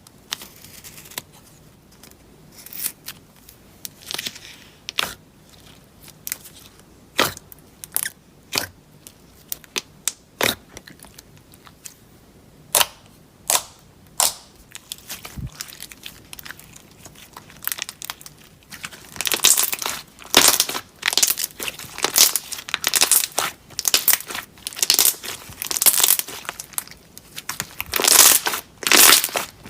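Slime being worked, giving scattered sharp clicks and pops at first, then dense, continuous crackling from about two-thirds of the way through.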